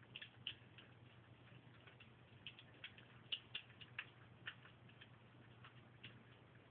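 Faint, irregular small clicks of Bombay kittens eating from food bowls, chewing and licking at the food, about a dozen spread unevenly, over a steady low hum.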